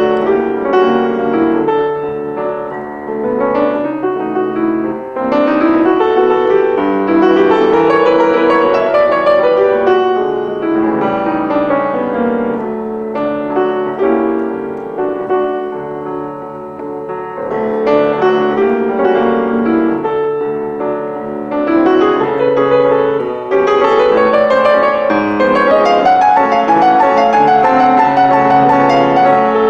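Solo piano playing a flowing piece, with rising runs of notes over held chords in the bass.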